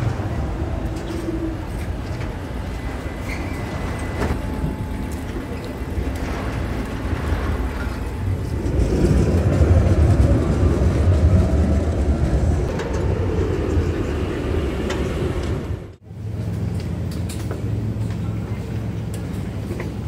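Electric tram at a platform with a steady low rumble. The rumble grows louder from about nine seconds in to about fifteen seconds as the tram moves off. Near the end the sound cuts abruptly to a steadier low hum.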